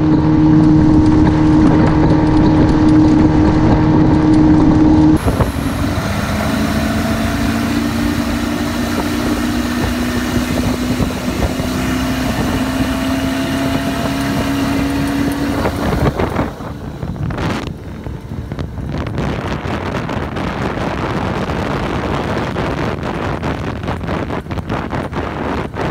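Swapped-in 1992 Ford Ranger truck engine powering a Bayliner runabout at speed, with a steady note for the first few seconds. After a cut, its pitch climbs slowly as the boat gains speed. In the last third, wind buffeting the microphone and rushing water largely cover the engine.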